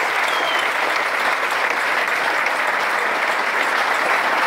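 Concert audience applauding steadily, with a brief whistle from the crowd just after the start.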